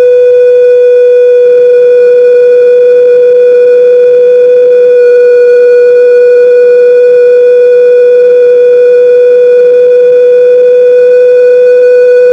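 Home theatre amplifier and speaker putting out a loud, steady whistle tone with several overtones, like a train whistle: the amplifier fault being repaired.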